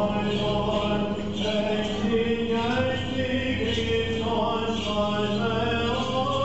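Byzantine chant of Orthodox Vespers: a chanted melody over a steady low held drone note.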